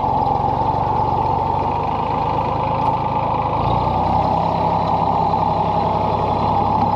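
Tractor backhoe's diesel engine running steadily while it is driven through brush, its note shifting about three and a half seconds in.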